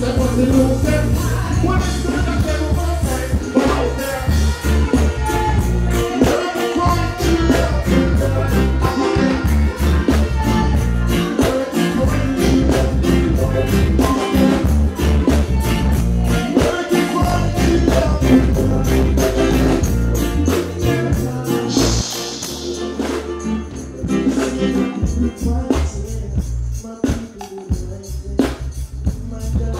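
Live reggae music through a concert PA: a male singer singing over a band with a heavy bass line and a steady beat. The bass drops out for a couple of seconds about two-thirds of the way through, then returns.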